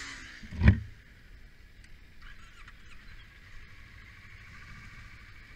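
A loud thump about a second in, then a Kawasaki Ninja motorcycle running steadily on track, its engine and wind noise heard from a body-mounted camera.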